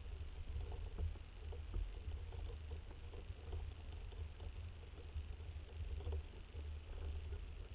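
Muffled underwater ambience heard from a camera submerged in a canal: a steady low rumble with faint, irregular small ticks and clicks scattered through it.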